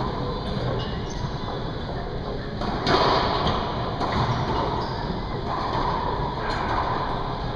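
Racquetball rally in an enclosed court: sharp smacks of the hollow rubber ball off racquet strings, walls and floor, echoing, the loudest about three seconds in and further hits following every second or so.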